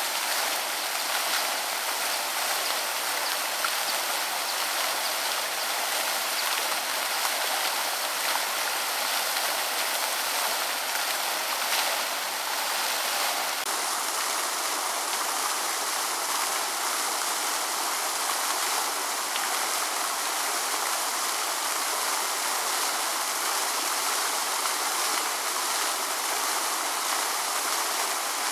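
Steady rushing of running water, an even hiss with little low rumble, its texture shifting slightly about halfway through.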